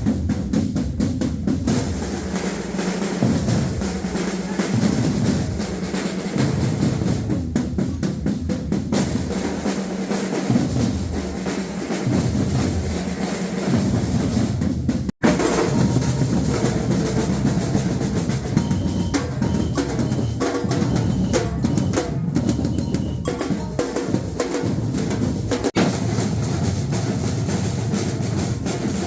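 Batucada drum ensemble playing a dense, continuous rhythm: surdo bass drums pounding out a repeating low pattern under the rattle of snare drums and other hand percussion. The sound cuts out for an instant about halfway through.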